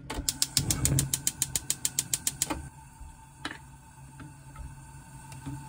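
Gas stove burner's igniter clicking rapidly, about ten clicks a second, then stopping after about two and a half seconds. A sharp knock follows as marinated pork ribs are tipped from a plastic tray into the frying pan.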